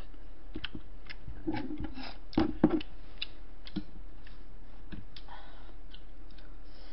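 Close-miked eating sounds: chopsticks and a spoon clicking and scraping against bowls and plates, with soft chewing. There is a cluster of louder clicks about two and a half seconds in, over a steady low hum.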